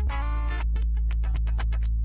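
Background music: guitar chords in a steady rhythm over a sustained low bass.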